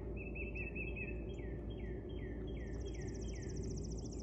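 A songbird singing a series of downward-slurred whistled notes, quick at first and then spaced out. About two and a half seconds in, a higher, rapid trill joins it. Underneath is a steady low background rumble.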